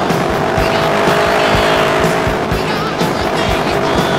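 Aprilia Tuono V4R's V4 engine holding steady revs while the motorcycle rides at speed, with wind buffeting the microphone.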